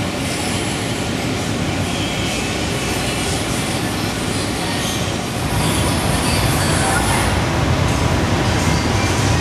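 Muffled rumble of jet airliner engines heard through the terminal glass, with a faint whine; the rumble swells louder about five and a half seconds in.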